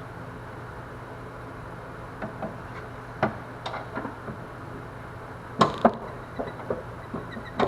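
Scattered metallic clicks and clanks of hand tools and parts being handled during an engine teardown, starting about two seconds in, with two sharper knocks close together a little past halfway, over a steady low hum.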